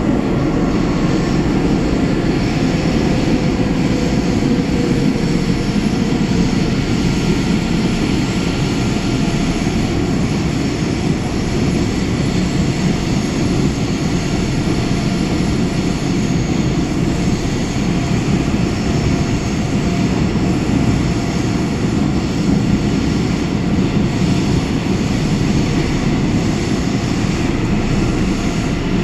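Seoul Metro Line 9 Class 9000 electric multiple unit running at speed through a tunnel, heard from inside the car: a loud, steady rumble of wheels on rail and running gear.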